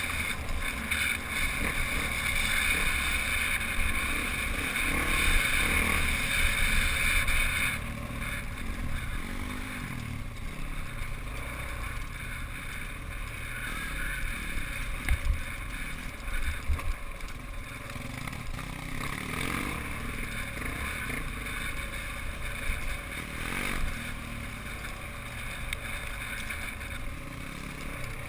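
Small pit bike engine running while riding a dirt trail, with wind on the microphone. The engine sound drops a step about eight seconds in, and there are two sharp thumps a little past halfway.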